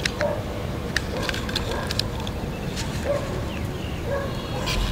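Plastic toy monster tractor being handled and turned in the hands: a scatter of light plastic clicks and knocks, over a steady outdoor background rumble.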